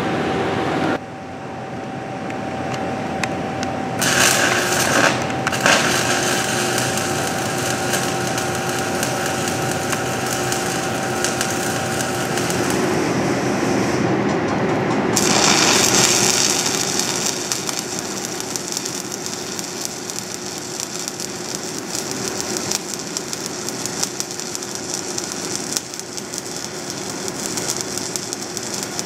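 Stick welding arc of a 1/8-inch 7018 electrode, crackling and hissing steadily as the bead is run. The first arc is a restart on a rod end scratched clean after it froze, which runs erratic at the beginning; about halfway through the sound changes to a smooth, steady start.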